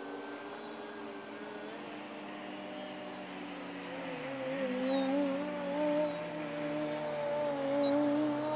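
Electric RC aerobatic plane in flight, its brushless motor and 12x6 propeller giving a steady whine. About four seconds in the pitch dips sharply and rises again, then the sound comes back louder with a wavering pitch.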